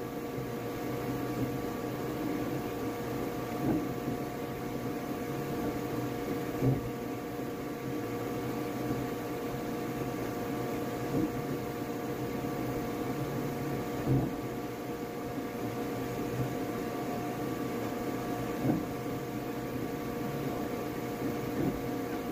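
Flashforge Adventurer 5M Pro 3D printer running mid-print: a steady whine and hum with a low buzz that shifts as the print head moves. A sharp tick comes every three to four seconds.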